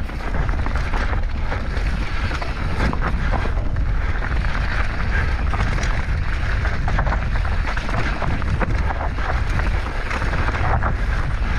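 Heavy wind buffeting the microphone of a mountain bike descending at speed, with scattered clattering knocks and rattles from the bike running over rough ground.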